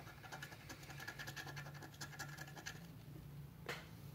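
Fast, faint scratching of the scratch-off coating on a Gold Rush Classic lottery ticket, about ten strokes a second, stopping about three seconds in; a single click follows near the end.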